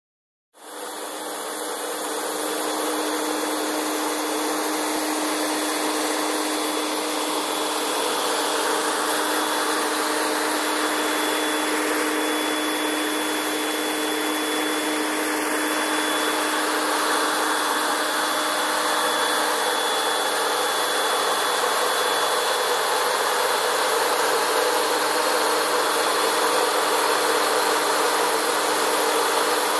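Micro-hydro turbine running: water jets spraying onto the runner of an old Fisher & Paykel Smart Drive washing-machine motor used as a generator. A steady rush of water with a steady low hum, rising in within the first second.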